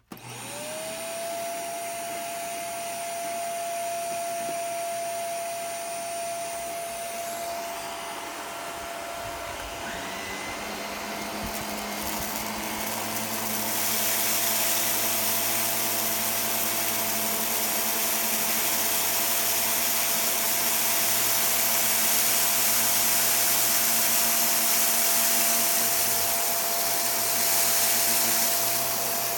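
Shark vacuum cleaner switching on, its motor whine rising in pitch within the first second and then holding steady. About ten seconds in, a lower hum joins, and a few seconds later the rushing air noise grows louder.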